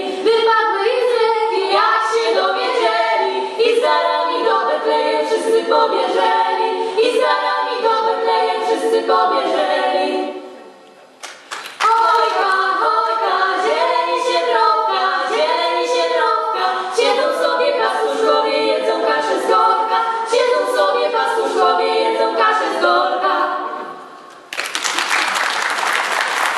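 Three girls' voices singing a Polish Christmas carol (kolęda) a cappella. There is a short pause about ten seconds in, then the singing resumes. Near the end it stops and applause breaks out.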